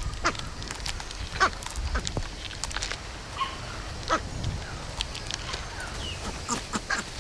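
Crested black macaque chewing a large atlas beetle: irregular crunches and cracks as the beetle's hard shell breaks between its teeth.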